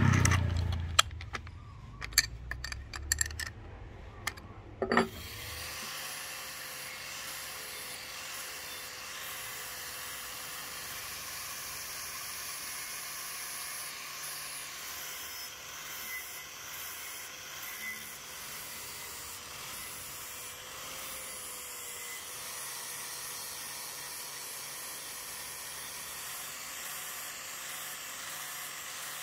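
A few sharp clicks as the flange nut and flap disc are fitted to an angle grinder. From about five seconds in the angle grinder runs steadily with a whine and a hiss, its abrasive disc sanding rust off a steel double-bit axe head.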